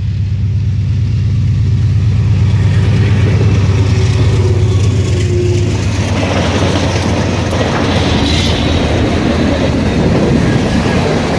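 A train passing close by: first the steady low drone of the approaching locomotive's engine, then from about six seconds in the rattling clatter of wheels on the rails as the cars roll past.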